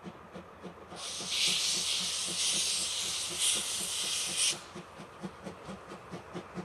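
Steam locomotive C56 160 working toward the listener, its exhaust beating in rapid, even chuffs, with a loud hiss of steam blowing from low at the front of the engine for about three and a half seconds, starting about a second in.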